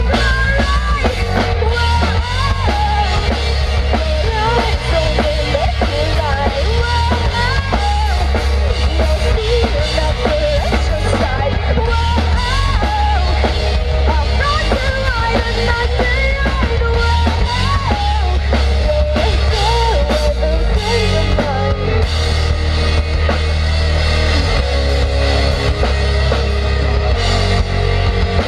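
Live rock band playing: a drum kit and electric guitar over a heavy bass, with a wavering melody line above them.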